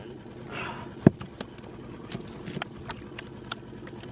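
Boat motor idling with a steady low hum, under a loud knock about a second in and a string of sharp clicks and taps.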